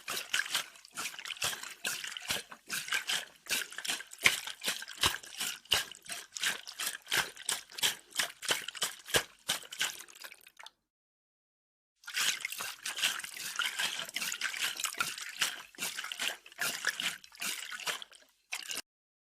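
Cocktail shaker being shaken, its contents rattling and sloshing in quick rhythmic strokes of about four a second. It runs for about ten seconds, stops for about a second, then goes on for about six more, with a short final shake near the end.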